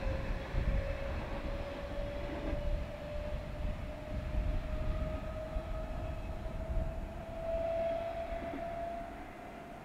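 Modernised Berlin S-Bahn class 480 electric multiple unit accelerating away, its replacement electronic traction control giving a slowly rising whine over the low rumble of the wheels. The whine is the 'chirp' of the new drive control, which has replaced the class's original starting sound. The sound drops off about nine seconds in as the train draws away.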